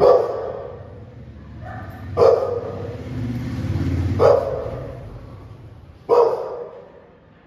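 Pit bull barking four times, single loud barks about two seconds apart, each trailing off in an echo. A low rumble swells beneath the middle barks.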